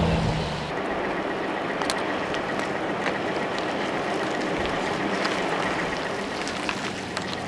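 Steady outdoor hiss of wind and road noise on a wet street. A low engine hum fades out just after the start, and a few light clicks are scattered through.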